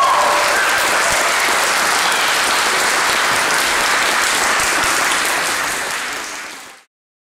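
Audience applauding, steady at first, then fading out and cutting off near the end.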